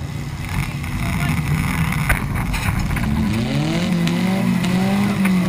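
Demolition derby car engines revving up and down, with a few sharp knocks from the cars about two seconds in and again near the end.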